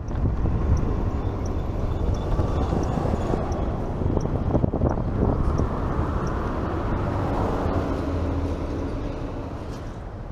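Road traffic noise: a steady rumble of passing vehicles, with a faint regular tick about twice a second during the first few seconds.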